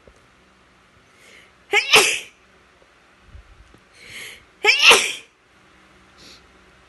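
Two sneezes about three seconds apart, each preceded by a short in-breath.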